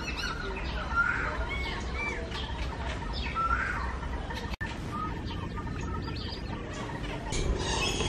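Birds calling: repeated short chirps that bend up and down in pitch. The sound drops out for an instant just past halfway.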